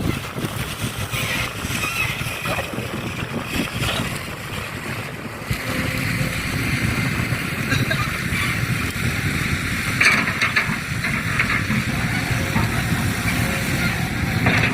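A vehicle engine running steadily, with a few short knocks and clatter over it.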